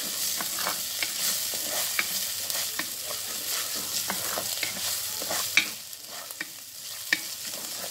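Chopped ginger, garlic and green chillies sizzling in hot oil in an earthenware pot, stirred with a wooden spatula that scrapes and clicks against the pot. The sizzle eases a little near the end.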